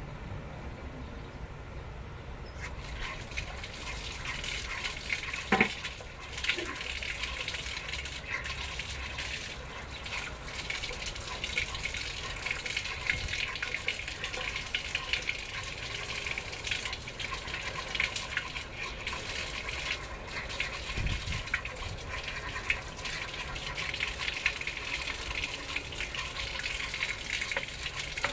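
Water running from a tap and splashing steadily, starting about two and a half seconds in.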